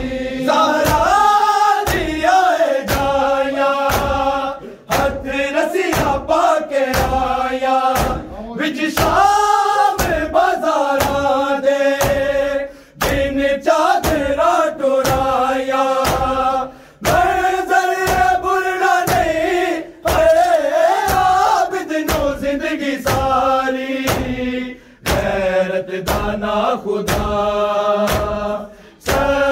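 A group of men chanting a noha (Shia lament) in unison, with sharp rhythmic chest-beating slaps (matam) about twice a second. The chant pauses briefly between lines every few seconds.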